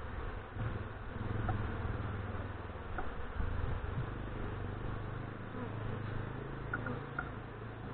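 Honeybees buzzing in a steady low drone as a disturbed colony flies around its open hive boxes.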